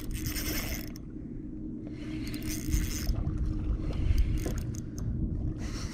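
Spinning reel being cranked on a retrieve, its gears whirring in three short spells, over a low rumble.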